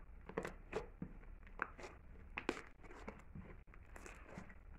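Soft slime being kneaded and squeezed by hand, giving faint, irregular sticky clicks and crackles, about two or three a second.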